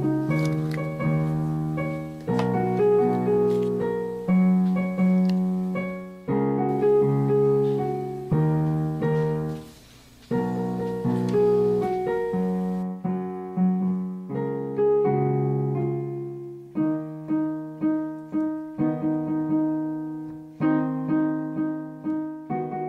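Background music: a piano tune of struck notes and chords, each dying away before the next.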